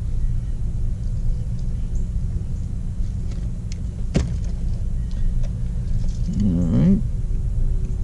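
A steady low mechanical rumble runs throughout, with a single sharp click about four seconds in and a brief voiced hum near the end.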